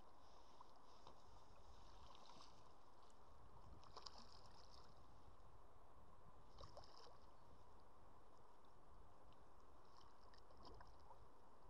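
Near silence, with a few faint, brief splashes of a hooked trout thrashing at the water's surface.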